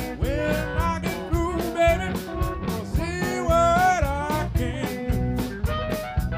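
Live band with a harmonica solo: bent, wavering harmonica notes over electric guitars, bass and a steady drum beat. The harmonica phrase ends about two-thirds of the way through while the band plays on.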